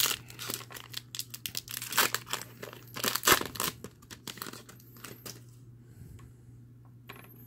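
Foil booster pack of Pokémon trading cards being torn open and its wrapper crinkled in the hands, in sharp crackles that die down about five and a half seconds in.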